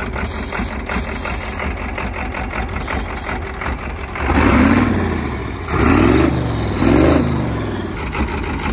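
Turbocharged diesel engine of a custom-built vintage Ford tractor idling, then revved three times about four, five and a half, and six and a half seconds in. Each rev climbs in pitch and drops back to idle.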